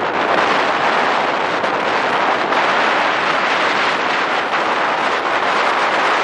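Steady rushing wind and tyre noise from a car moving at speed, with no distinct engine note standing out.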